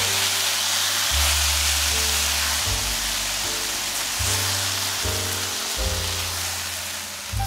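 Sliced bell peppers, onion and chopped tomatoes sizzling steadily in olive oil in a sauté pan, under background music with a moving bass line.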